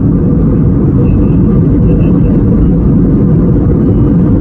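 Steady low roar of a jet airliner in cruise, the engine and airflow noise heard inside the cabin.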